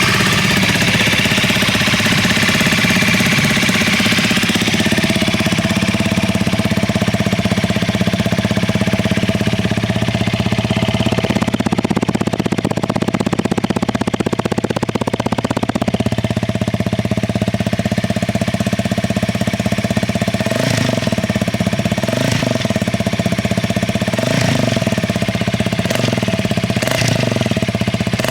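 Honda CRF250L's single-cylinder four-stroke engine idling through an aftermarket SP Tadao POWERBOX stainless exhaust and silencer, then given about six short, gentle throttle blips in the last third.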